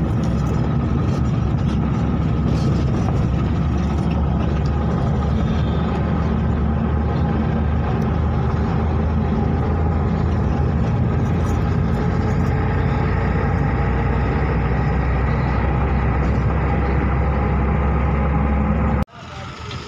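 Steady engine and road noise inside a vehicle's cab while cruising on a highway, strongest in the low rumble. It cuts off sharply near the end, giving way to quieter sound.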